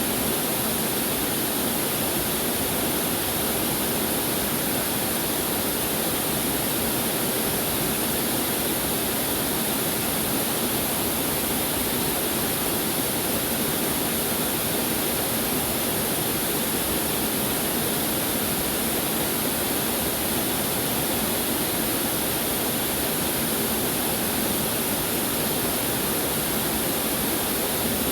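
Waterfall pouring steadily, a constant rushing of water.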